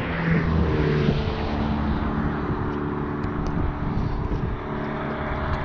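An engine drones at a steady pitch over a constant hiss.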